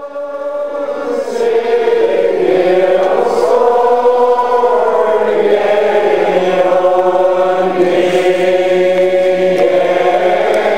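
A large crowd of about 400 to 500 Old Order Mennonites singing together unaccompanied, in long, slowly drawn-out notes. The singing swells in over the first second or so.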